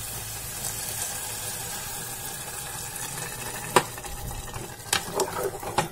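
Water poured from a glass into a pressure cooker of fried dal and spinach, a steady pouring hiss for about three and a half seconds, followed by a few sharp knocks near the end.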